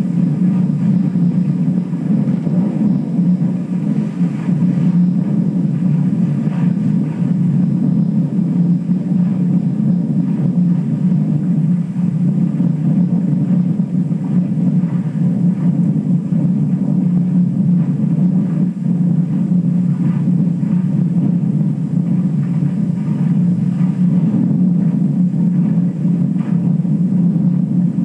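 Film projector running with a steady low drone.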